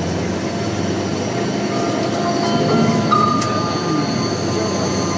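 Steady rumble of a moving vehicle heard from inside the cabin, with a thin high squeal coming in about three seconds in.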